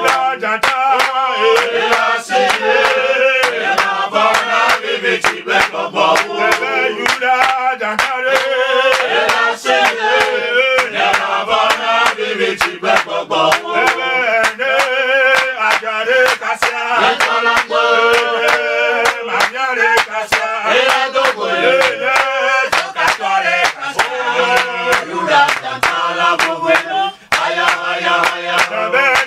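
Several men singing a worship chant together, with many sharp clicks throughout.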